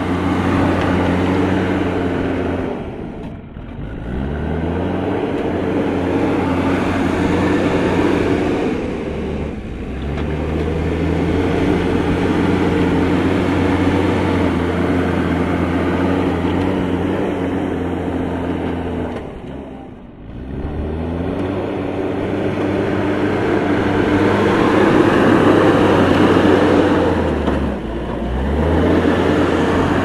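JCB backhoe loader's diesel engine running under load while the front bucket works dirt. The engine pitch dips and climbs back up about four times as the revs fall and pick up again.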